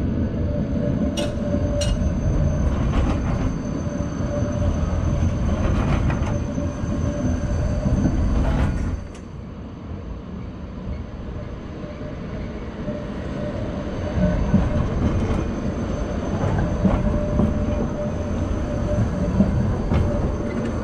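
A tram running on curved street track close by: rumbling wheels and running gear, sharp clicks of the wheels over rail joints, and a thin steady squeal of the wheels on the curve. The noise drops about nine seconds in, then builds again.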